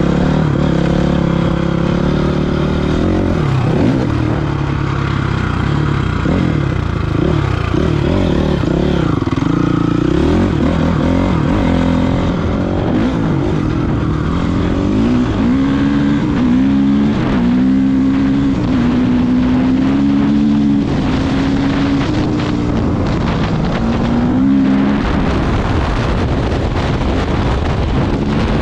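Honda CRF450R's single-cylinder four-stroke engine running under load as the dirt bike is ridden. The revs rise and fall repeatedly through the first half, then hold steadier and higher, dipping briefly a few times.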